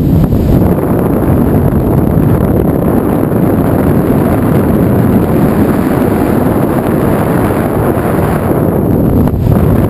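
Loud, steady roar of freefall wind buffeting the camera's microphone during a tandem skydive.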